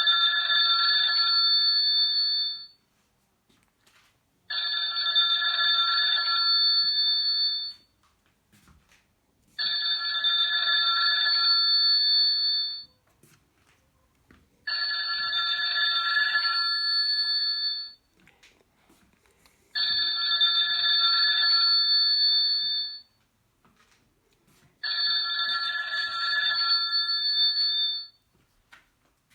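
Doro 1360 mobile phone playing a telephone-bell-style ringtone through its loudspeaker. Each ring lasts about three seconds and is followed by a pause of about two seconds, and the ring comes six times over.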